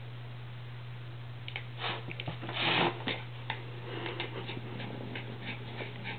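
A small dog's short, sharp sniff through the nose about two and a half seconds in, with a smaller one just before it and faint light clicks afterwards, over a steady low hum.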